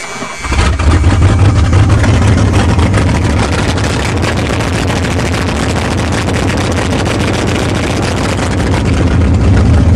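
Old car engine firing up in the first second of a cold winter start, then running loudly and steadily with a heavy low exhaust rumble.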